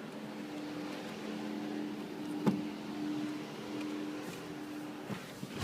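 Steady low hum of a car, typical of the 2006 Chrysler 300's engine idling, with a light click about two and a half seconds in.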